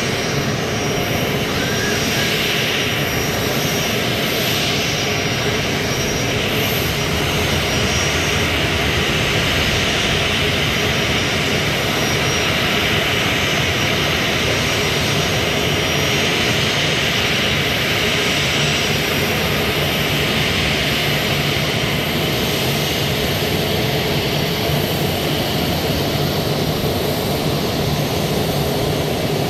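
Airbus A321-231's IAE V2500 turbofan engines running steadily at taxi power: an even jet noise with thin, steady high whining tones over it.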